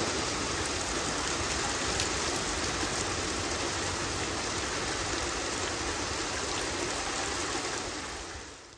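Thunderstorm downpour: rain pouring down in a steady hiss of water that fades out near the end.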